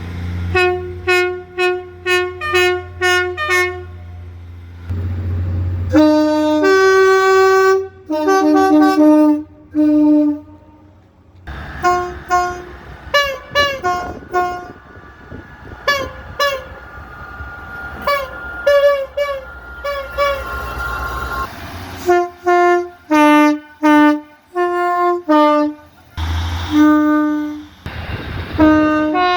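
A string of British train horns cut together from several trains: short blasts and rapid toots, many alternating between a high and a low note, over a low engine rumble in some sections. The sound changes abruptly every few seconds as one train's horn gives way to the next.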